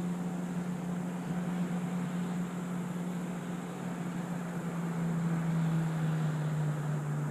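A steady low mechanical hum with a faint hiss behind it, its pitch sinking very slightly.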